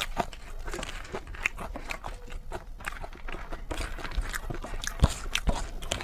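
A person eating spicy noodles: irregular wet chewing and biting clicks, with a couple of louder knocks about five seconds in.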